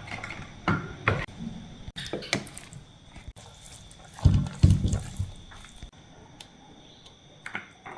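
Water splashing, with scattered knocks and clatter; two dull thumps near the middle are the loudest sounds.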